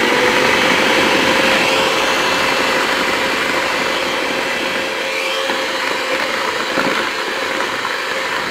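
Electric hand mixer running at a steady speed, its beaters whipping eggs and sugar in a plastic bowl: a loud, even motor whine.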